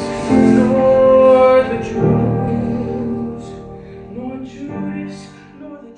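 Background music with sustained held notes and a voice or instruments, fading out near the end.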